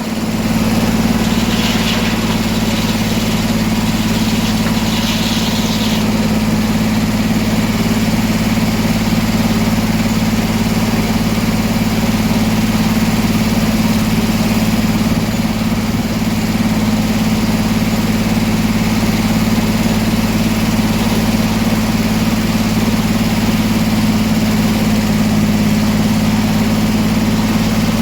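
Sawmill engine running at a steady speed throughout, with a constant deep hum.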